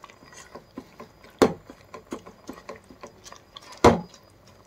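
A ladle stirring vegetables in a cooking pot: soft scraping clicks, with two sharp knocks of the ladle against the pot, about a second and a half in and near the end.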